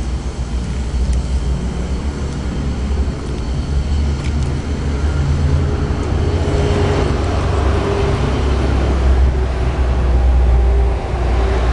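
Steady low rumble, with a passing vehicle growing louder about six seconds in and fading near the end.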